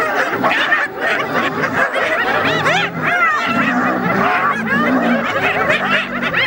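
Many spotted hyenas giggling at once, a dense chorus of short rising-and-falling cackles, with lower drawn-out calls mixed in from about three and a half seconds in. The giggling is the excited call of a clan mobbing a lion at a contested kill.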